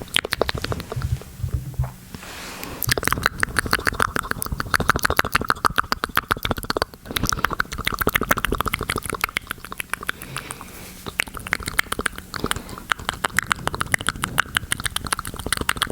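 Close-miked ASMR mouth sounds: wet tongue and lip clicks and smacks coming rapidly, many a second, almost without pause.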